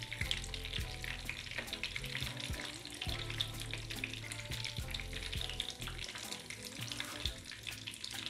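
Chicken shami kababs shallow-frying in hot oil in a pan: a steady sizzle with dense, fine crackling.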